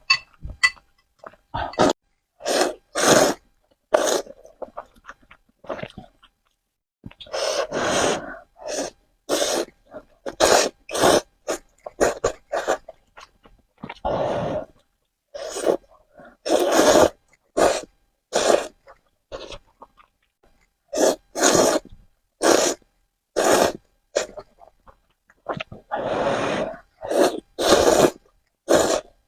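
Close-miked eating sounds: noodles slurped in repeated bursts about a second long, with shorter chewing and mouth sounds between and brief pauses.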